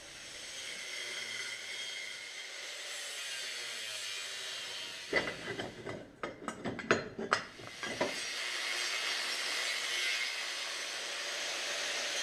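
A steady background hiss, broken about five seconds in by a quick run of sharp metal clanks and knocks, lasting about three seconds, as a steel engine-mount bracket is handled and fitted in the engine bay.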